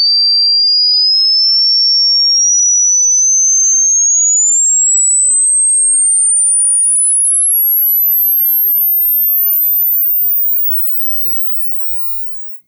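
Sine-wave test tone sweeping steadily upward in pitch into the very high treble: the top end of a 20 Hz to 20,000 Hz frequency sweep for checking speaker response. It stops abruptly about ten and a half seconds in.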